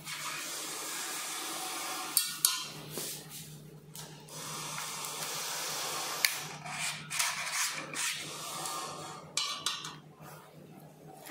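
Rustling and scraping as hands handle the electric scooter's plastic trim, metal frame and wiring, with a few sharp clicks and knocks, two close together about two seconds in. A steady low hum runs underneath.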